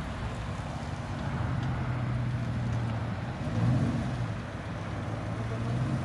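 Lowered GMC Sierra pickup's engine running as the truck rolls slowly past, a steady low note that swells briefly a little past halfway.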